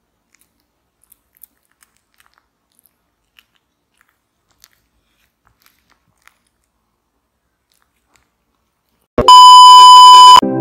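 A tabby cat chewing turkey slices: faint, scattered clicks of biting and chewing. About nine seconds in comes a loud, steady test-pattern beep with a crackle of static, which cuts off abruptly after about a second.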